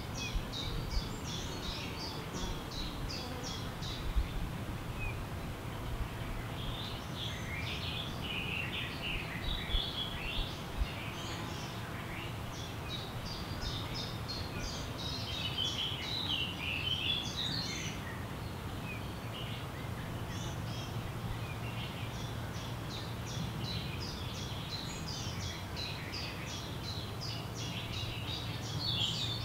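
Wild birds singing in a forest. Quick high notes repeat at about three a second in three spells: at the start, mid-way and near the end. Between them come lower, jumbled warbling phrases, over a steady low background hum with a few soft knocks in the first half.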